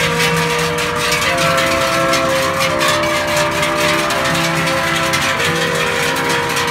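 Large cowbells on a passing herd of cows clanging steadily, over long held musical notes that change pitch every few seconds.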